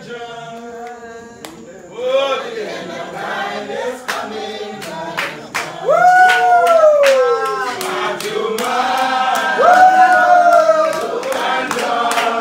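A single voice starts a hymn, and about two seconds in a Spiritual Baptist congregation joins in singing, with hand claps keeping time about twice a second. The voices swoop up into long notes that slide slowly down.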